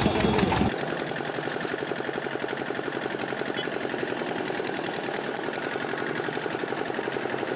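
Motorised sugarcane juice crusher running steadily with a fast, even pulse while cane is fed through its rollers. It is a little louder and deeper for the first second or so.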